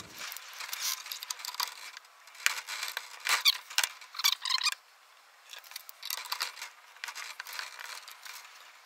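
Light metal clicks, clinks and scrapes come in irregular clusters as an armorer's wrench is handled and fitted onto an AR-15 barrel nut. There is a short lull about five seconds in.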